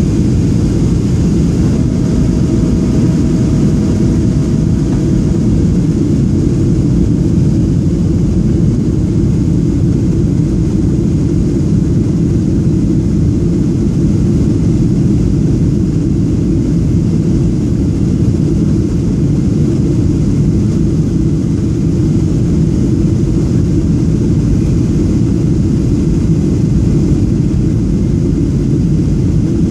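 Cabin noise inside a Boeing 737-700 on approach with its flaps extended: the CFM56-7 engines and airflow over the wing make a steady low rumble. A faint thin tone shows briefly a few seconds in.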